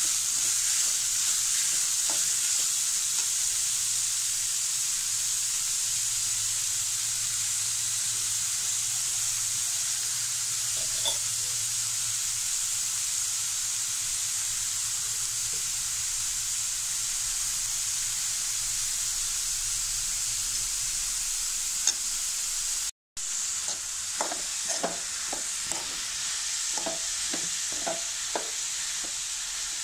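Chopped banana stem sizzling steadily as it fries in a metal pan. After a split-second break about three-quarters of the way through, a metal spoon scrapes and stirs it around the pan in a run of short strokes.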